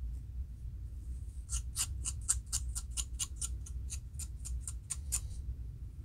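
Fingernails scratching at a dry, flaky scalp between locs to lift dandruff flakes: a quick run of crisp scratches, about five a second, starting a second and a half in and stopping near the end.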